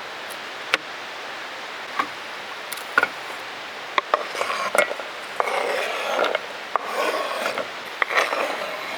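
Knife cutting vegetables on a wooden cutting board: single knocks about once a second, then from about halfway a spell of scraping and rubbing of the blade and pieces across the board.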